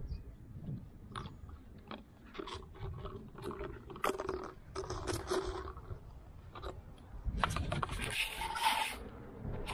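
Puppies scuffling over a paper cup on concrete: scattered scrapes, light crunches and scuffs of the cup and paws. Near the end comes a louder rustling brush as a puppy pushes its fur against the camera.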